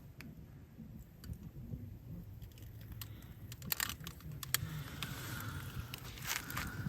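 Scattered crackles and sharp snaps of a campfire being started, with a few louder snaps about halfway through and near the end.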